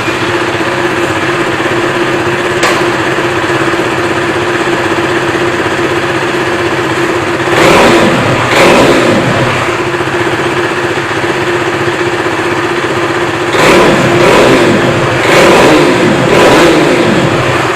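KTM RC 390 single-cylinder engine idling steadily. The throttle is blipped twice about halfway through and three more times near the end. The engine is being run to check for the visor rattle, which rubber washers under the visor nuts have cured, as the owner concludes.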